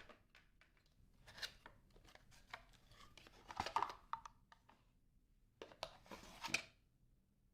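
A run of short clicks and rustles from something being handled, with louder bouts of scraping or tearing noise about one and a half, three and a half and six seconds in.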